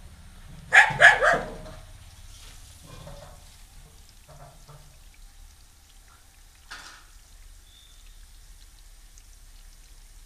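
A dog barking at a newly arrived stray puppy: three quick, loud barks about a second in, then a single bark near seven seconds.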